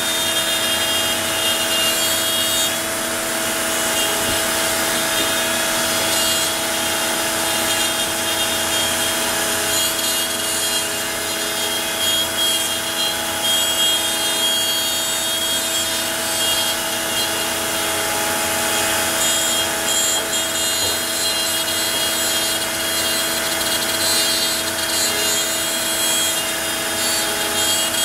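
Onefinity CNC's router spindle running at a steady whine while its small bit cuts out the shapes, the cutting noise wavering a little as the bit moves along its path.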